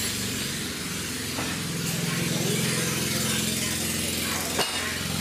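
A motor or engine running steadily with an even pulsing hum, and one sharp knock near the end.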